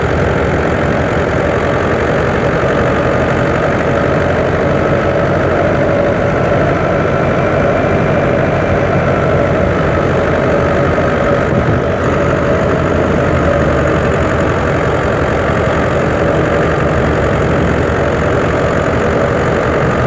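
A 640 tractor's diesel engine running steadily while driving a wheat thresher. The machinery makes an unbroken drone with a steady higher hum on top.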